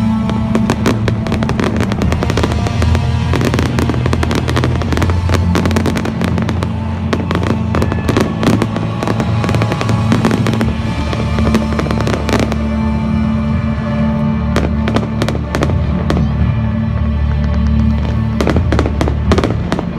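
A fireworks display: rapid bangs and crackles in quick succession over a musical soundtrack, thinning out about two-thirds of the way through.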